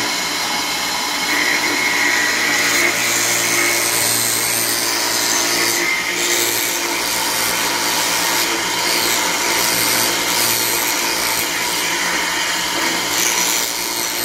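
Homemade router table (tupia) running steadily, its steel bit cutting a groove in a hand-fed wooden strip: a constant motor whine under the rasp of the bit chewing through the wood.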